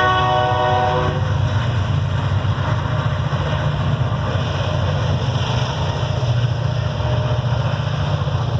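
Train horn sounding a chord that cuts off about a second in, followed by the steady rumble of a long freight train rolling past.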